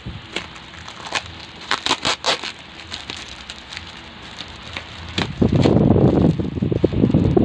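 Plastic courier bag and its clear plastic wrap crinkling as they are handled and pulled open by hand. There are scattered sharp crackles at first, then louder, continuous rustling from about five seconds in.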